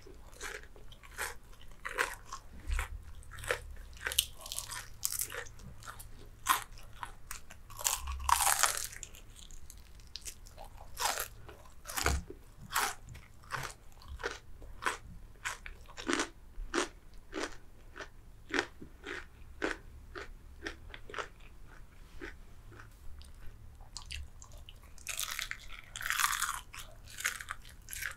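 Close-miked crunching and chewing of crispy fried chicken: a fast, irregular run of sharp crackles as the breaded skin is bitten and chewed. Louder, longer crunches come with bigger bites about eight seconds in and again near the end.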